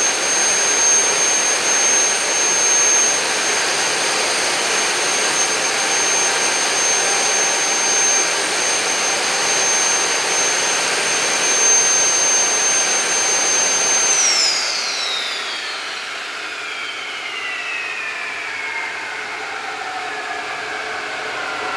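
Homemade turbojet engine running at a steady speed with a high whine over its exhaust noise. About fourteen seconds in, the whine starts falling steadily in pitch and the noise drops as the turbine spools down.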